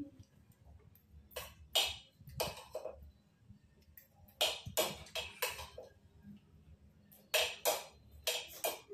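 Metal spoons clinking and scraping on ceramic plates: a dozen or so short, sharp strokes in irregular clusters.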